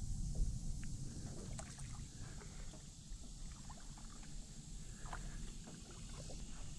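Water sloshing gently around a small aluminum jon boat, over a low, steady rumble, with faint scattered ticks and drips.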